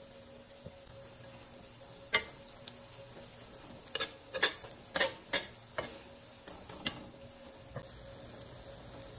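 Metal spatula clinking and scraping against a stainless-steel wok while an egg omelette fries with a faint sizzle. One sharp clink about two seconds in, then a quick run of clinks and scrapes between about four and seven seconds.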